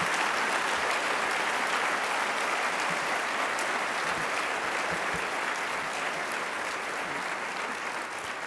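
A large audience applauding steadily, the dense clapping slowly dying down toward the end.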